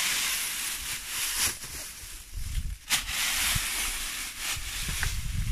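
A garden rake dragged through dry fallen leaves, a crackling scrape in strokes about every second and a half.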